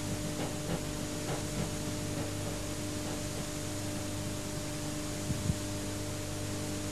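Steady hiss and low mains hum from an old analogue video recording's soundtrack, with no programme sound. The last faint traces of music die away in the first second, and there is a single soft knock about five and a half seconds in.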